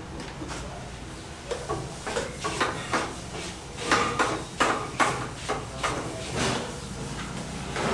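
Irregular knocks and clatters of objects being handled and set down, some with a short ring, over a steady low hum.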